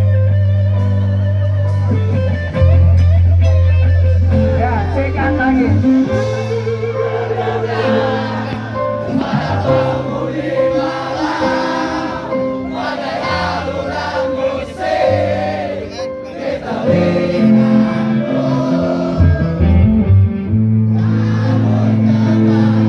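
Live rock band playing loudly through a PA: electric guitar over sustained bass notes, with singing coming in about six seconds in.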